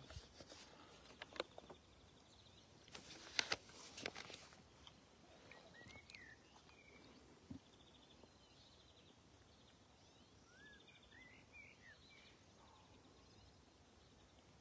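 Quiet outdoor ambience: a few sharp clicks and knocks in the first four seconds, then scattered bird chirps and a faint repeating buzz.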